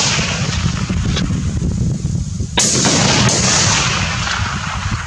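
A high-powered rifle shot about two and a half seconds in: a sharp crack with a long echo dying away. The echo of a shot fired just before is still fading at the start.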